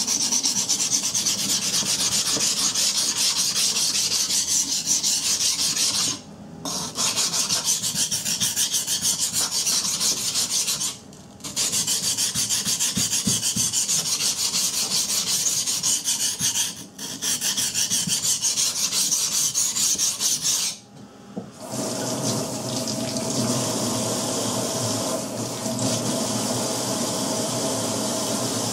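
Steel knife blade of a Ka-Bar Becker BK17 rubbed back and forth on a wet coarse whetstone in rapid, even strokes while the bevel is reprofiled, with three brief pauses. About three-quarters of the way through the strokes stop and a steady sound of water running from a tap into a steel sink takes over.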